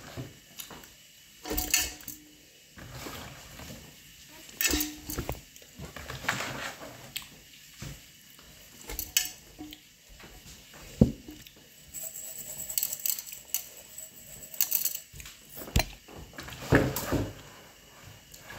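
Dishes and kitchen utensils being handled: irregular clinks and knocks, a few of them ringing briefly, with some scraping or rustling midway.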